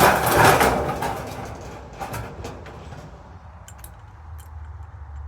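A cordless power tool runs in one short burst against the thin steel panels of a raised bed, then fades over the next couple of seconds, with a few light clicks after it.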